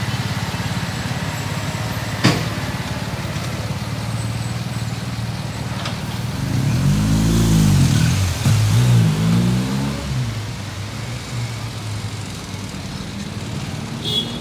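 Heavy diesel engine of a Scania P410 recovery truck running under load as it tows a broken-down tractor-trailer, with a sharp knock about two seconds in. In the middle an engine revs up and down twice, the loudest part, and motorcycles pass near the end.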